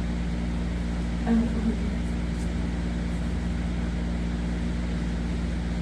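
Steady low mechanical hum of a running room appliance, such as an air conditioner or refrigerator, holding the same level throughout. A brief short voice sound rises over it about a second and a half in.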